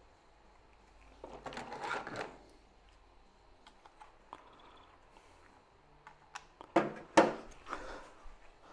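Someone rummaging through small parts: a rustle of handling about a second in, then a few sharp clacks and light clatter of small hard items near the end.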